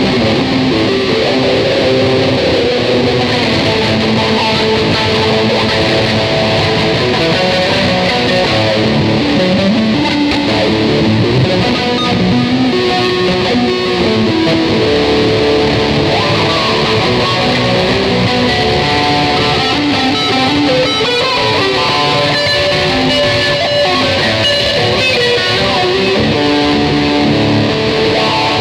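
Ibanez electric guitar played continuously in a loose improvisation, a steady run of picked notes and strummed chords.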